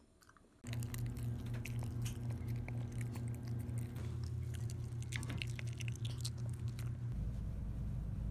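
Maltese dog eating with its head in a paper cup: many quick wet clicks of chewing and licking over a steady low hum. About seven seconds in this gives way to the low rumble of a moving car's cabin.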